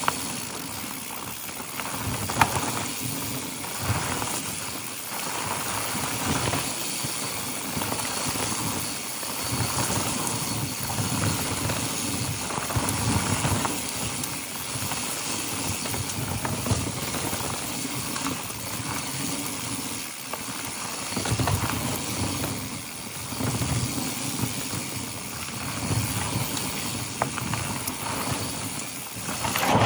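Mountain bike riding down a dry dirt trail: tyres running over dirt and gravel and the bike rattling over bumps, with wind rushing over the microphone. A sharp knock comes about two seconds in and another near the end.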